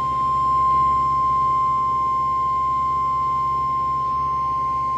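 NOAA Weather Radio warning alarm tone: a single steady 1050 Hz tone, held unbroken and sounding ahead of a severe thunderstorm warning. It comes through a weather radio receiver with faint hum and hiss underneath.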